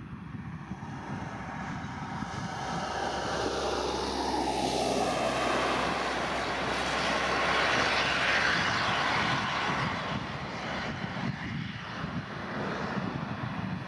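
Twin-engine Airbus A320-family jet airliner at takeoff thrust, its engine noise swelling as it rolls and lifts off, loudest about eight seconds in, then easing as it climbs away. A whine in the engine noise falls in pitch around the middle as it passes.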